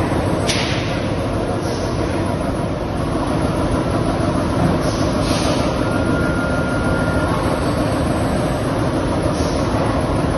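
Steady industrial rumble and hiss, with a few faint soft knocks and a brief steady high tone about six seconds in.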